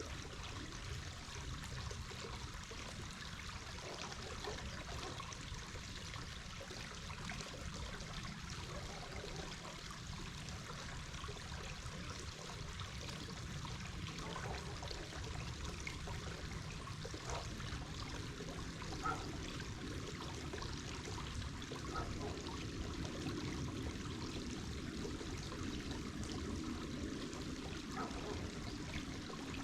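Running water in a small stream, a steady trickling and splashing rush.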